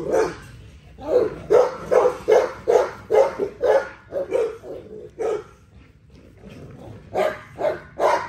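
Pit bulls barking excitedly during tug-of-war play: a quick run of about a dozen short barks, a pause of about two seconds, then a few more near the end.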